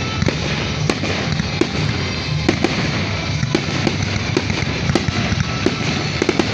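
Fireworks going off: an irregular run of sharp pops and crackles, several a second, over a steady background rumble.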